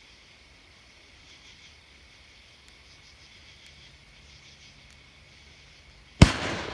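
Crickets chirping faintly at night for about six seconds, then, near the end, one sharp, loud bang with a decaying echo: the first shot of a seven-shot consumer firework cake going off.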